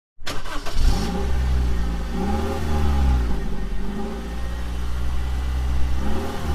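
Car engine revving in repeated blips over a steady low drone, each blip rising and falling in pitch.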